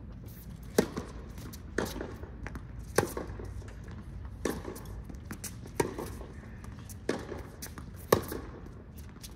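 Tennis rally on a hard court: a serve, then racquets striking the ball back and forth, seven sharp hits about a second and a quarter apart. The hits alternate between louder ones from the near end and fainter ones from the far end, with softer clicks between them.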